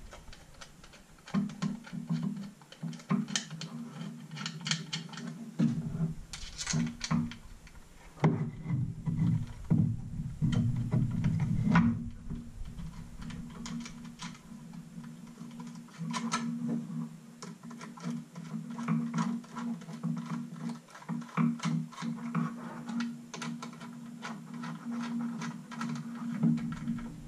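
Low background music, with scattered clicks and knocks of small screws and hard kydex holster parts being handled and fitted together.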